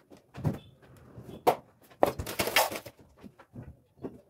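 Kitchen handling noises: a steel pan and food packets moved about on the counter, a run of irregular knocks, clicks and rustles.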